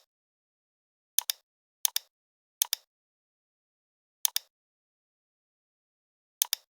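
Computer mouse clicking: five sharp paired clicks at irregular intervals, with dead silence between them.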